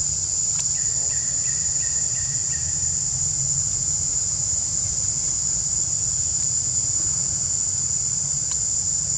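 Steady, high-pitched drone of insects, unbroken throughout, over a low rumble.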